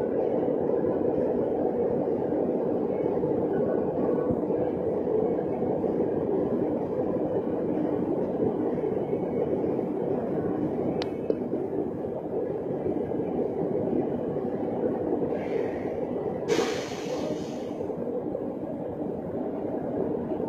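Steady machine drone, with a single sharp click about 11 seconds in and a brief hiss about 16 seconds in.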